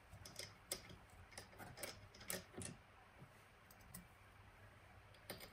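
Faint, irregular small clicks as a washer and thrust bearing are handled and slid onto a steel shoulder bolt with a gloved hand. Most of the clicks fall in the first half, with near silence between them.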